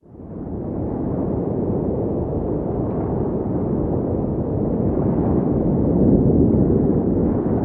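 A steady, deep rumbling noise that fades in over about a second, then holds even, with no distinct knocks or tones.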